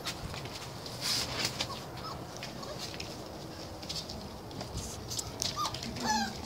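Puppies moving about on a hard floor, with light scuffling and clicks, then short high-pitched puppy squeaks near the end, rising in pitch.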